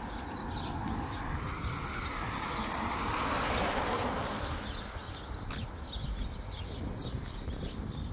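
Footsteps on a wet footpath, with a rushing swell of noise that builds and peaks about three to four seconds in and fades away by about five seconds, and faint short high chirps scattered throughout.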